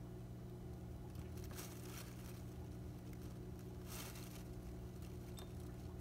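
Faint rustles and a few soft scrapes in a hamster cage, over a steady low hum.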